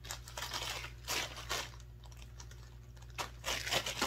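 Plastic packaging crinkling and rustling in irregular bursts as it is handled, with the loudest crackles about a second in and again near the end.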